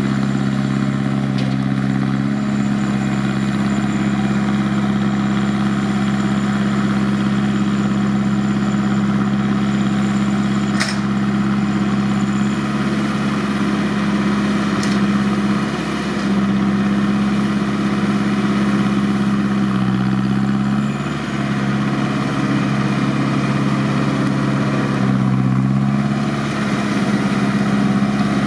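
Massey Ferguson tractor's diesel engine running steadily while pulling a working McHale round baler. The engine note dips briefly twice in the second half.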